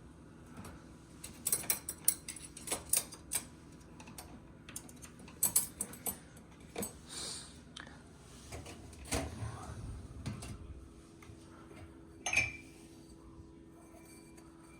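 Dishes, glasses and silverware clinking and knocking in dishwasher racks as the racks are handled and unloaded after a finished wash cycle: a run of separate sharp clinks, some heavier low knocks in the middle, and one ringing clink near the end.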